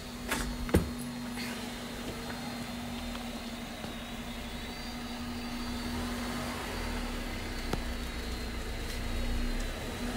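Small camera drone's motors and propellers running steadily in flight: a constant hum with a thin high whine above it, and wind rumbling on the onboard microphone. A sharp click comes just under a second in.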